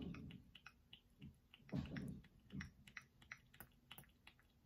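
Small irregular plastic clicks and taps from a pump bottle of moisturizer sunscreen being handled and pressed, with a few soft low thumps. The pump is hard to get going.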